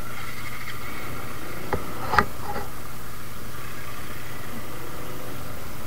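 A Suzuki Gixxer motorcycle's single-cylinder engine running steadily at low speed. Two sharp knocks come about two seconds in, the second the louder.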